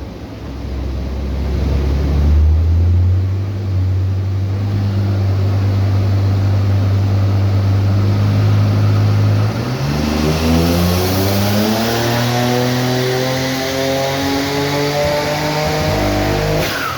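Car engine on a chassis dyno, running steadily, then revving under load, its pitch climbing steadily for about seven seconds before cutting off abruptly near the end. The run is made to show a misfire that comes in at 5500 rpm.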